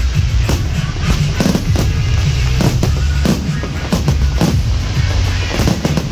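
Aerial fireworks shells bursting, a sharp bang every second or so, over loud music with a strong bass.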